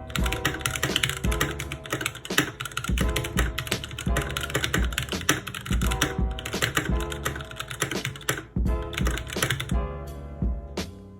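Typing on a Keychron K6 mechanical keyboard with Gateron Brown switches: a fast, continuous run of keystrokes that thins out near the end. Background music with a steady beat plays underneath.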